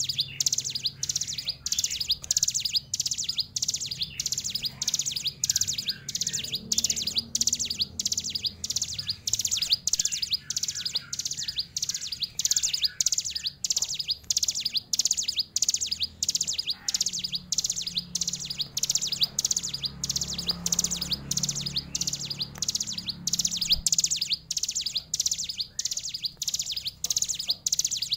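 Caged ciblek gunung, a prinia, singing a fast, unbroken run of high repeated chirps at about three a second.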